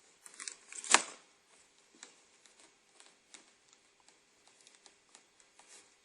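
Scattered light clicks and taps of hands at work, with one sharp knock about a second in.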